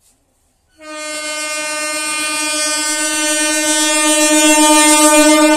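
An electric multiple unit (EMU) train's horn sounds one long, steady blast as the train approaches, starting under a second in and slowly growing louder.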